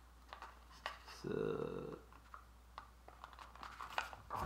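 Light clicks and taps of small plastic and paper kit parts being handled and pressed together on a tabletop. About a second in, a short hum of a voice stands out over the handling noise.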